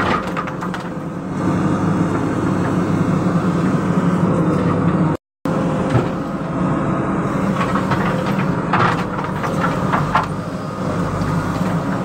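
JCB backhoe loader's diesel engine running steadily, heard from the operator's cab while the backhoe arm digs, with a few short knocks. The sound cuts out for a moment about five seconds in.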